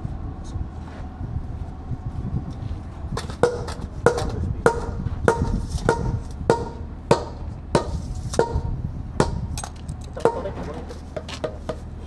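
Steel tamping bar being driven repeatedly into the soil bedding under a precast concrete frame: an even run of ringing metallic strikes, about one every half second, starting a few seconds in. A low steady rumble runs underneath.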